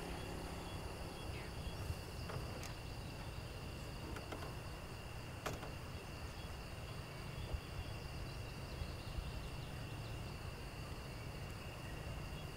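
Steady, faint chirring of insects over a low, even rumble, with a few faint clicks about two seconds and five and a half seconds in.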